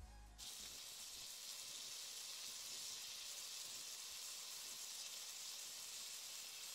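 A raw ground-beef patty sizzling in a hot frying pan: a steady frying hiss that starts about half a second in.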